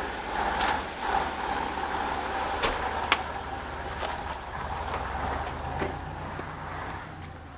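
GS-14 motor grader's diesel engine running steadily under work, with two sharp knocks about two and a half and three seconds in.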